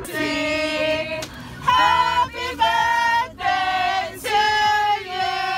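Singing in long, steady held notes over music.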